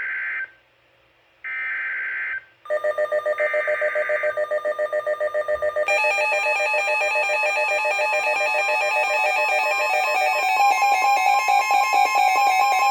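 Emergency Alert System SAME header data bursts on NOAA Weather Radio: one-second raspy screeches, the last two about a second apart. A rapidly pulsing alert tone starts about three seconds in, and from about six seconds in the steady two-tone EAS attention signal sounds, announcing a new warning.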